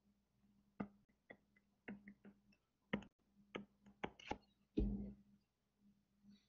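Stylus tapping and clicking on a tablet screen while handwriting: about a dozen light, irregular taps over roughly four seconds, over a faint steady hum.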